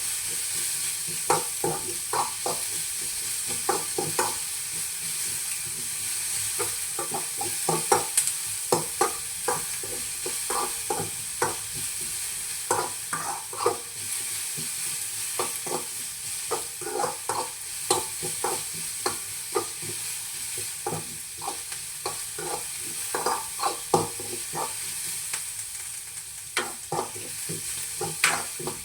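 Finely chopped onions sizzling in hot oil in a pan, with a utensil stirring them and knocking against the pan irregularly, about once or twice a second.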